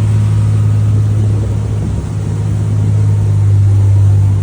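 Boat engine running at a steady speed: a loud, even low drone with a rushing hiss over it.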